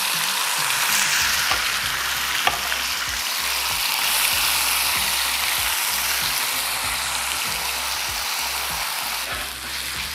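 Thin slices of beef short plate sizzling as they drop into hot oil in a pan: a steady hiss with a few sharp pops.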